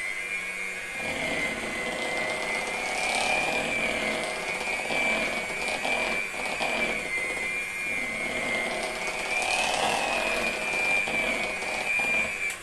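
Handheld electric mixer running steadily with a high whine, its beaters whipping shortening-and-milk frosting in a bowl. It cuts off right at the end.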